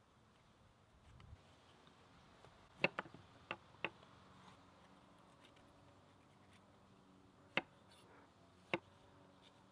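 Chef's knife slicing bell peppers and knocking on a wooden cutting board: a quick run of four knocks about three seconds in, then two single knocks later.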